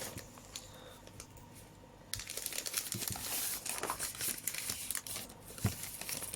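Packaging being handled and unpacked by hand, crinkling and rustling in quick irregular crackles that start about two seconds in after a quieter stretch.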